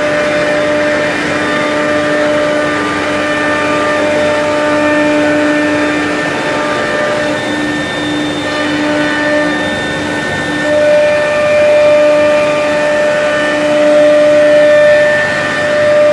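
XQ2165 CNC panel router running, its gantry travelling along the bed: a steady mechanical whine of several tones over a noisy hiss, one tone dropping out about a second in and coming back later, growing a little louder near the end.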